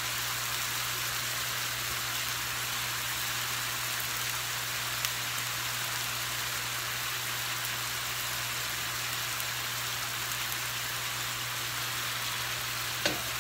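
Cubed chicken sizzling steadily in hot oil in a nonstick frying pan, over a steady low hum. Near the end there is a single knock as the pan is taken by its handle.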